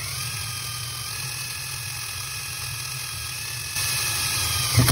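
Electric drill running steadily under load, a new quarter-inch bit boring deep into a 4L80E transmission pump to enlarge a hole as the TransGo HD2 kit requires. The motor gives a steady whine and stops right at the end.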